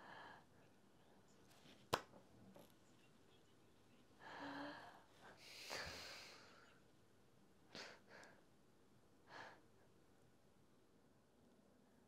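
Near silence: quiet room tone with a few faint breaths and sighs, and one sharp click about two seconds in.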